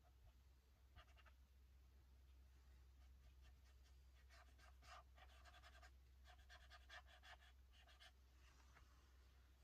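Faint scratchy strokes of a paintbrush working colour across paper, in short bunches from about four seconds in, over near silence and a low steady hum.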